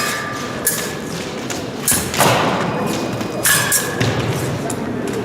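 Épée fencers' footwork thumping on the metal piste during a bout, with several sharp taps spread over a few seconds, some leaving a brief metallic ring.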